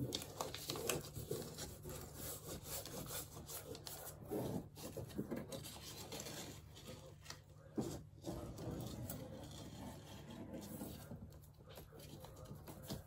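A hand rubbing and pressing dry, cracked paper wallpaper flat against the wall, glued back with liquid-nails adhesive. It makes an irregular scratchy rustle of paper under the palm, with a few louder scrapes in the middle.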